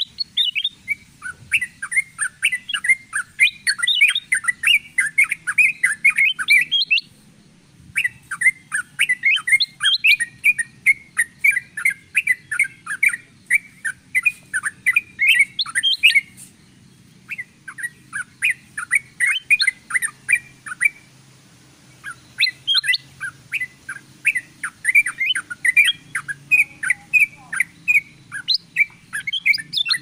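Bird-lure recording of yellow-vented bulbuls (trucukan) mixed with kutilang emas: fast, busy chattering calls in long runs, broken by short pauses about 7, 16 and 21 seconds in. A thin, very high rapid ticking runs alongside.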